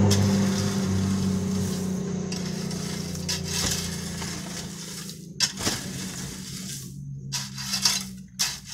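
A vehicle engine hum fading away over the first few seconds, then a metal garden rake scraping and dragging through loose crushed stone in several short strokes.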